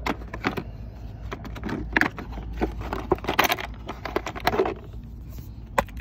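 Irregular clicks, knocks and rattles of a Pittsburgh click-type torque wrench being handled in and lifted from its hard plastic case, over a steady low rumble.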